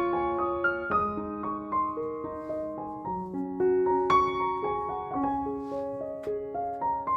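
Background piano music: a gentle melody of single notes over soft chords.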